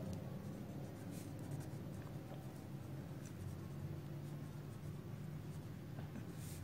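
Felt-tip marker scratching faintly across paper as words are written, over a faint low hum.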